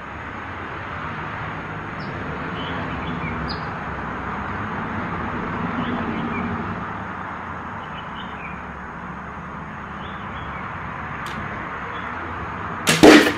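Faint bird chirps over steady background noise, then near the end a bow shot and an arrow hitting a foam target, two sharp smacks close together, the second the loudest.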